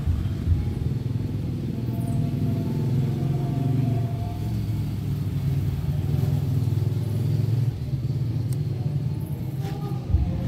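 Steady low rumble, like an engine running nearby, with a short knock near the end.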